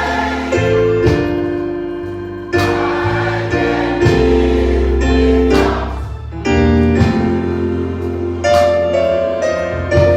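Gospel choir song with an accompaniment of sustained chords that change every second or two.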